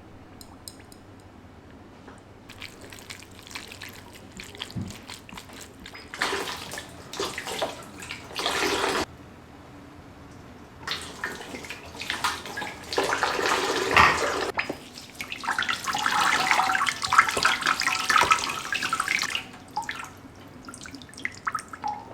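A tap runs into a sink in three spells, each a few seconds long, with water splashing. The first two spells stop abruptly, as when the tap is shut off. Faint small knocks come before the first spell.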